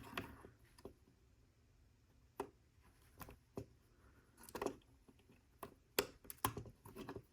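LEGO plastic pieces clicking and tapping as they are handled and pressed together: irregular light clicks, several close together near the end.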